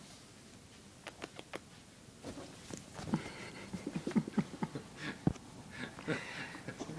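Kittens scrabbling and pouncing on a pair of jeans on a bed: a few light clicks and scratches, then from about two seconds in a busier run of soft thumps and denim rustling as they tussle.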